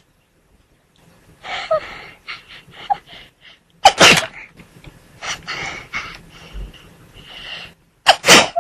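A person in a sneezing fit: a string of short, catching breaths, then a loud sneeze about four seconds in. More sniffing, hitching breaths follow, and a second loud sneeze comes near the end.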